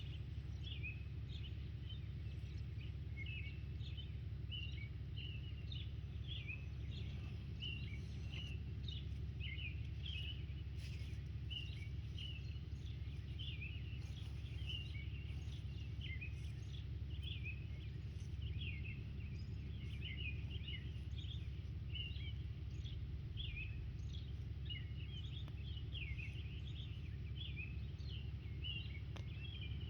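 Small birds chirping again and again in short, quick notes over a steady low outdoor rumble.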